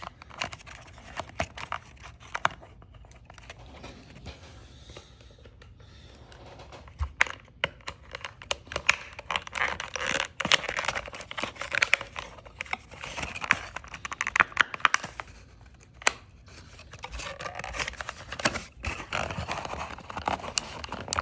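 Hands working a small toy figure free of its cardboard box and plastic packaging: irregular crinkling, scraping and tearing with sharp clicks. There are two quieter pauses, one a few seconds in and one past the middle.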